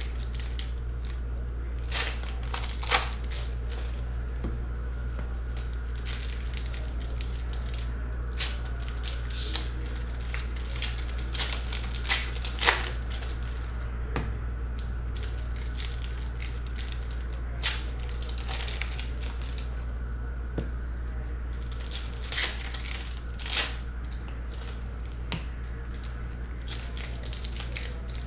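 Foil trading-card pack wrappers being torn open and handled, giving short irregular crinkles and crackles as the cards are pulled out, over a steady low hum.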